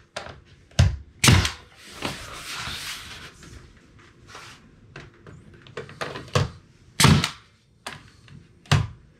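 Ridgid pneumatic finish nailer firing sharp shots as it tacks the corners of a split-jamb door casing: two close together about a second in, more near the end, with lighter knocks between.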